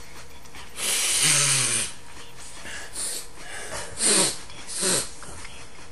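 A person snorting powdered snuff up the nose: one long, hard sniff about a second in, then three shorter sniffs and snorts.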